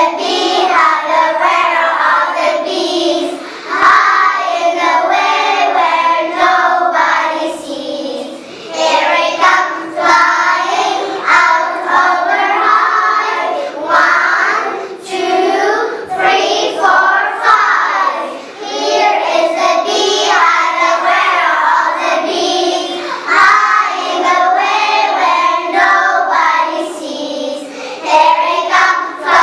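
A group of five-to-six-year-old children singing a song together in English, in phrases with short breaks between them.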